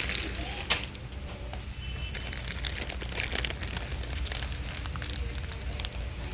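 Crinkling and rustling of packaging, with scattered clicks and a sharp knock about a second in, over a steady low hum.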